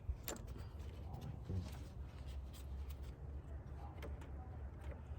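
Scattered faint clicks and light knocks of hand tools and engine parts being handled, over a steady low hum.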